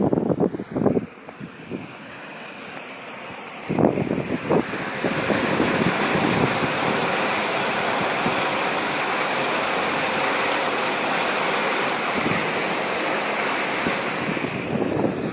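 Water rushing in a steady gush that starts abruptly about four seconds in and holds even, after a few short scuffs and knocks in the first second.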